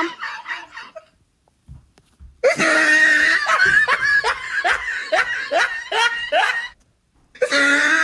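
A person laughing in bouts. One laugh trails off at the start. After a short pause a long loud laugh follows, a rapid string of 'ha's. Another laugh breaks out just before the end.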